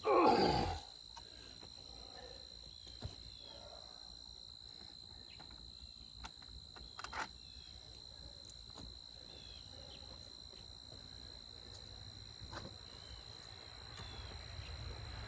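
A loud sound under a second long sweeps down from high to low pitch right at the start. After it comes a steady high insect drone with a few faint scattered clicks.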